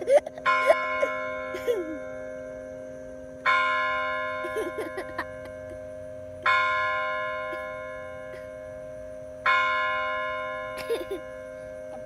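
A tower bell tolling: four strikes about three seconds apart, each ringing on and slowly fading, over a steady low hum from the bell.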